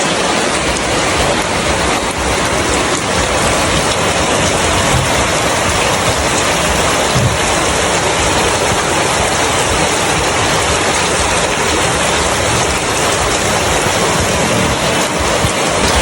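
Heavy rain falling in a steady, dense hiss, hard enough that water is getting into the house.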